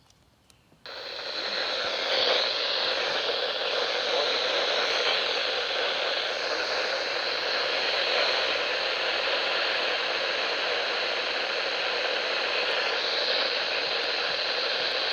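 A radio receiver's steady hiss of static, coming in after a brief silence at the start.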